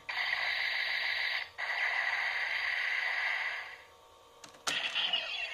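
DX Kamen Rider toy belt and Ridewatches playing a harsh, static-like electronic sound effect through their small speaker, broken once for an instant and cutting off about four seconds in. Near the end a Ridewatch button clicks and another short electronic sound effect starts.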